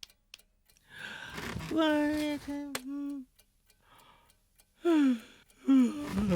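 Cartoon penguin characters vocalizing in Pingu's nonsense language: breathy exclamations and short calls that slide in pitch, some falling, one bending up and down near the end. A few quick ticks come just before the first voice.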